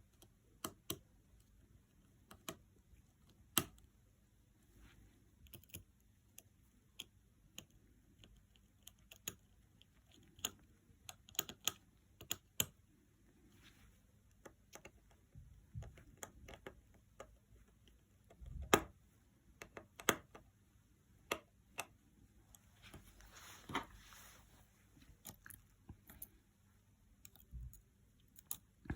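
Scattered light clicks and taps of small repair tools and screws on an iPhone 7's board and frame, as screws are refitted and connectors pressed back on during reassembly. A few louder knocks come in the second half, with a brief rustle after them.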